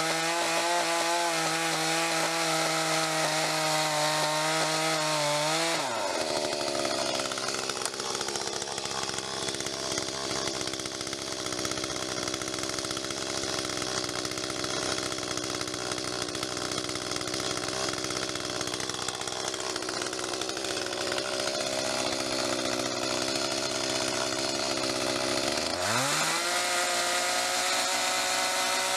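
Echo two-stroke chainsaw cutting a log at full throttle, dropping to idle about six seconds in. It idles steadily for about twenty seconds, then revs back up near the end as the next cut begins.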